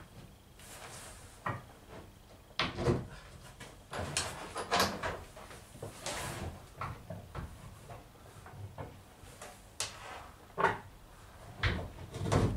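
A freshly steamed wooden runner being pressed and bent by gloved hands onto a fibreglass boat hull: irregular knocks and scrapes of wood against the hull and other timber.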